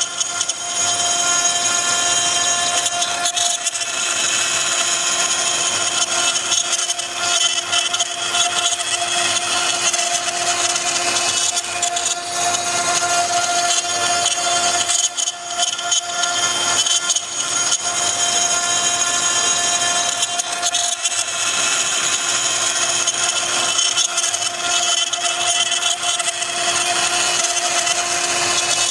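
Woodworking CNC router's 3.5 kW air-cooled spindle running with a steady high whine while the bit cuts wood, the cutting noise rising and falling a little.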